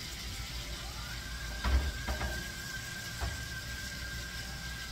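Pork chops sizzling in a frying pan, with a few knocks of a spatula against the pan as they are turned, the first the loudest. A steady high tone slides up and starts about a second in, then holds.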